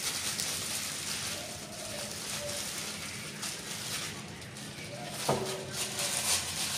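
Clear plastic bag and disposable plastic gloves rustling and crinkling as hands pack ground fish paste into the bag.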